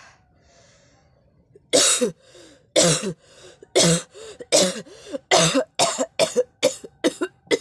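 A person coughing hard and on purpose, as in a coughing challenge. After a short quiet start comes a run of about a dozen loud coughs that come faster and closer together toward the end.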